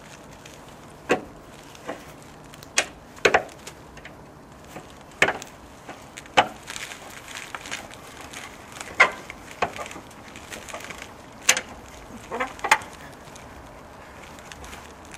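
Scissor jack being hand-cranked with a rod-type crank handle to raise a car: about a dozen sharp clicks and knocks at irregular intervals as the crank turns in the jack's eye.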